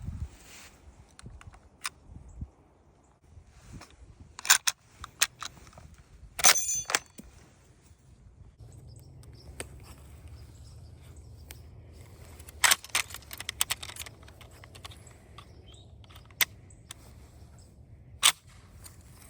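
Yugoslav M24/47 Mauser bolt-action rifle being handled, not fired: scattered metallic clicks and clacks of the bolt and stripper-clip loading, with one ringing metallic clink about six and a half seconds in.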